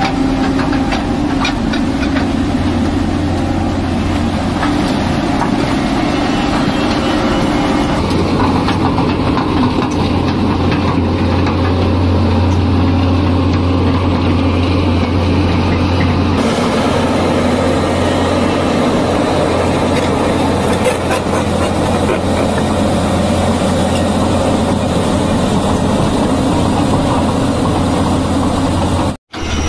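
Tata Hitachi crawler excavator's diesel engine running steadily with a deep hum. The sound shifts abruptly twice, about 8 and 16 seconds in, and breaks off for an instant near the end.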